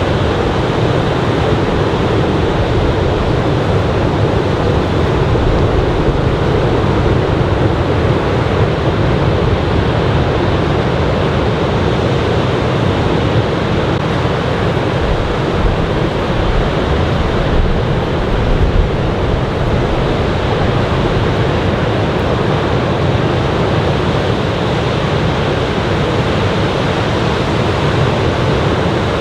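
Ocean surf from a typhoon swell: a steady, continuous wash of breaking waves.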